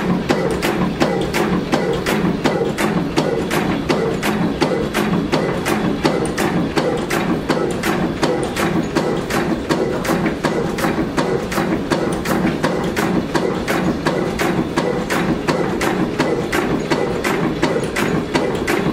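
Vintage Gardner horizontal stationary engine running at slow speed, with even, regular clicking, about three a second, over a steady running hum.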